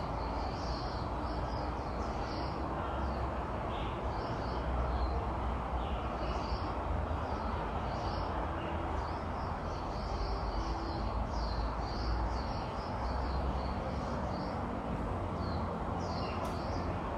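Outdoor ambience: birds chirping again and again in short high calls over a steady hiss and low rumble.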